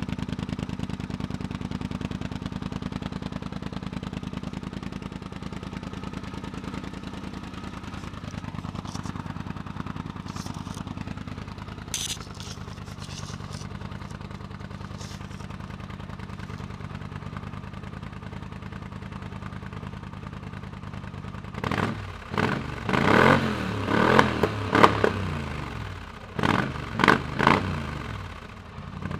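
Polaris Sportsman 850 XP ATV's parallel-twin engine idling steadily through an aftermarket slip-on exhaust, then revved in a quick series of short throttle blips over the last seven seconds or so.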